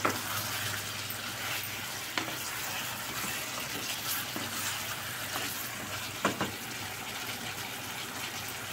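Chicken pieces and onions sizzling in a pot, stirred with a wooden spatula that knocks against the pot a few times, twice in quick succession about six seconds in.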